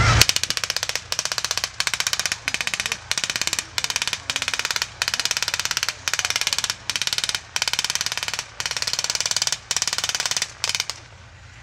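Automatic small-arms fire in rapid bursts of about half a second, one after another with only brief breaks, stopping about eleven seconds in.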